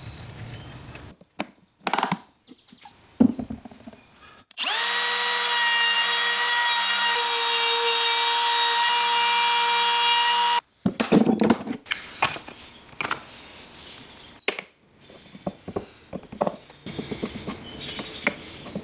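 A trim router spins up about four and a half seconds in and runs with a steady whine for about six seconds, then cuts off abruptly. Before and after it come short knocks and scrapes of wood and tools being handled on a bench.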